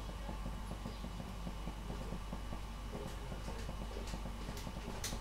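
Lidded pan of broad beans simmering on a gas hob: a dense, steady crackle of bubbling water over a low hum, with a few light clicks near the end.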